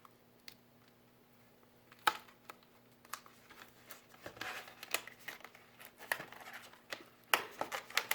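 Retail packaging of a RAM memory kit being opened by hand: a sharp click about two seconds in, then irregular crinkling, rustling and clicking as the box and its insert are handled.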